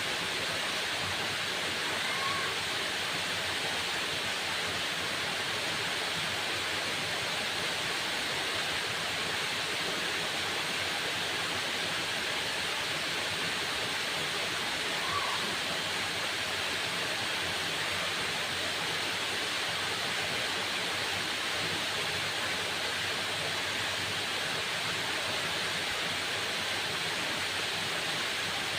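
Waterfall: falling water making a steady, even rush with no breaks or changes.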